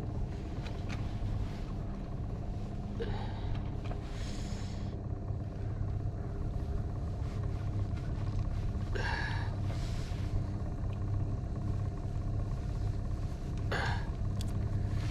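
A boat's outboard motor running steadily at trolling speed, a low even drone. Three brief noisy handling sounds come over it, a few seconds apart.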